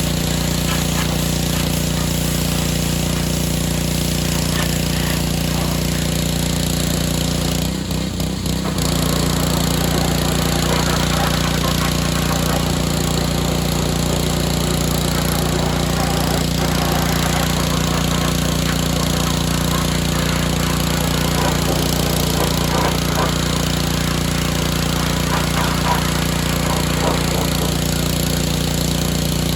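Pressure washer with a small engine running steadily, its water spray hissing over the engine note. About eight seconds in, the spray and engine note dip briefly, then carry on.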